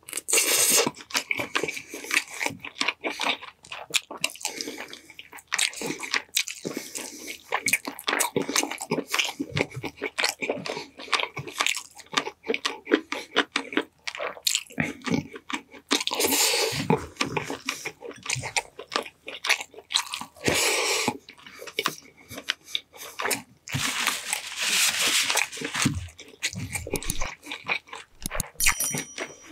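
Close-miked mukbang eating of honey-glazed chicken drumsticks with olives: biting and chewing mouth sounds, a dense irregular run of small clicks and smacks, with a couple of longer noisy stretches about halfway through and again near the end.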